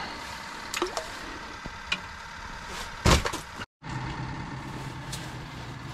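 A steady machine-like hum under a few light clicks and one loud knock about three seconds in. The sound cuts out for an instant just before four seconds, after which a lower, steadier hum comes in.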